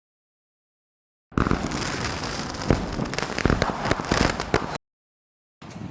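Fireworks popping and crackling in a dense burst of sharp reports, starting a little over a second in and cutting off suddenly after about three and a half seconds.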